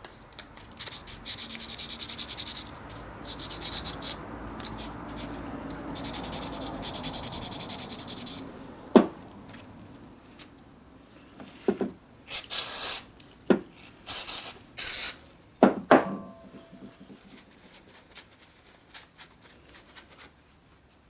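Rubbing and scrubbing strokes on a small part, as in cleaning rust off an old mini lathe, in patchy runs. About halfway through come a few sharp knocks and several short, loud hissing bursts.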